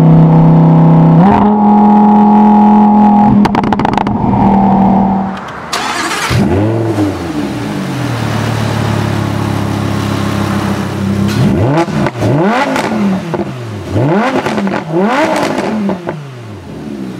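Lamborghini Huracán's V10 engine through its optional racing exhaust in Sport mode, with the bypass valve open: held at high revs for about five seconds, then dropping back to idle with a sharp crack, followed by a rev blip and then several quick throttle blips rising and falling near the end.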